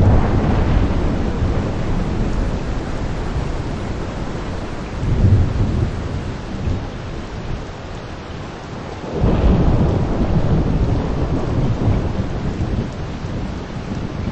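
Heavy rain shower falling steadily, with thunder rumbling deep and low in three swells: at the start, about five seconds in, and a longer roll from about nine seconds in.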